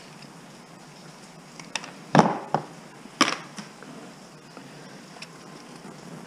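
A handful of sharp knocks and clatters of hand tools and computer parts being handled on a wooden workbench: tin snips put down and hands working inside a steel desktop computer case. About six short knocks fall between two and four seconds in, the loudest two about a second apart.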